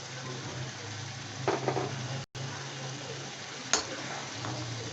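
Spice paste frying and sizzling in a pan while a spatula stirs it, with a few sharp spatula knocks against the pan about a second and a half in and again near the end. The sound breaks off for a moment about two seconds in.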